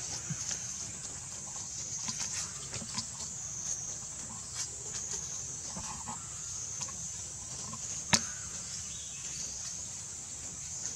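Outdoor forest ambience: a steady high hiss with scattered small clicks and a few faint squeaks, and one sharp click about eight seconds in.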